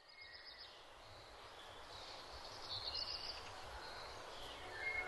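Outdoor nature ambience fading in: birds give short chirps and twittering trills, once near the start and again about three seconds in, over a soft steady background hiss.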